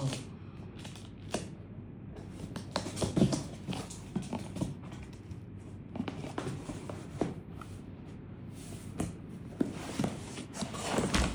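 Laptop box and its packaging being opened and handled: scattered rustles, taps and small knocks.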